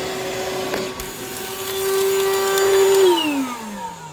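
Shop vac motor running with a steady whine that gets louder about two seconds in, then switched off about three seconds in and winding down with a falling whine.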